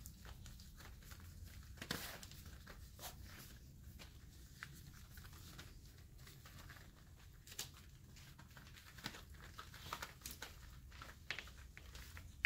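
Faint rustling of fur and bedding with scattered soft clicks and scuffs from five-week-old Airedale Terrier puppies tussling on a blanket, over a low steady hum.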